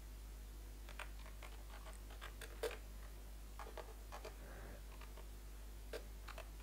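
Faint, irregular keystrokes on a computer keyboard as a search word is typed slowly, one key louder than the rest about two and a half seconds in, over a steady low hum.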